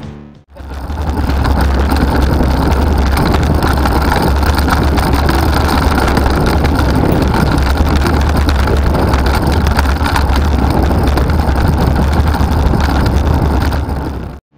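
Steady wind rush on a bicycle-mounted camera's microphone while riding along a road, mixed with road traffic. It starts about half a second in and cuts off just before the end.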